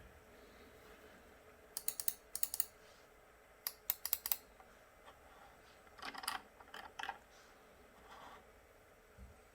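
Computer keyboard typing in short bursts of key presses. Two quick runs of sharp, bright clicks come about two and four seconds in, then a run of duller keystrokes around six to seven seconds.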